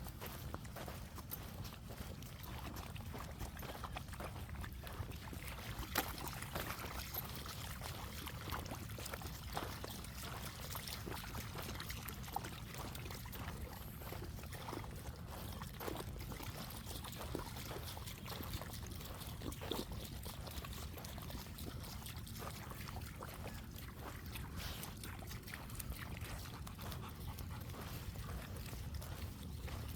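A dog moving about at a trickle of water, with scattered small splashes and taps over a steady low rumble.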